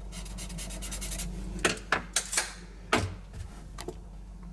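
Felt-tip marker scratching across the wooden wasteboard as a line is drawn, followed by a few sharp clicks and a knock.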